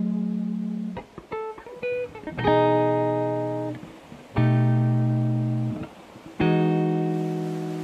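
Background music: guitar chords, each left to ring and fade, a new chord about every two seconds, with a few quick plucked notes about a second in.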